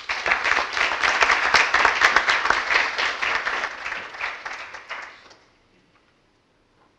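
Council members applauding in the chamber: a dense round of clapping that dies away after about five seconds.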